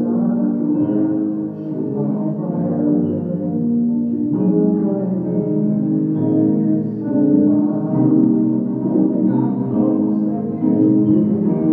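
Yamaha digital piano played with both hands: sustained chords that change every second or two, with a melody line on top.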